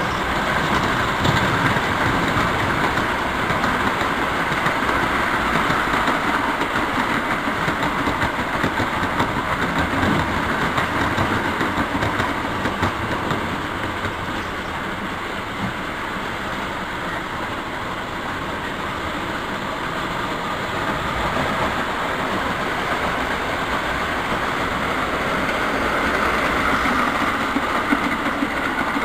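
O gauge three-rail model train running on its track, a steady rolling clatter of metal wheels and motor. It eases off a little in the middle and grows louder again near the end.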